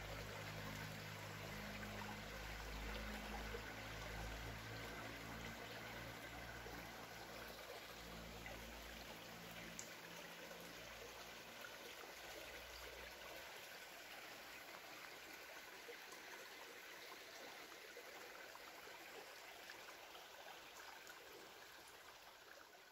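Faint trickle of a small, shallow stream running over rocks. A low rumble underlies it for the first half or so and dies away about halfway through.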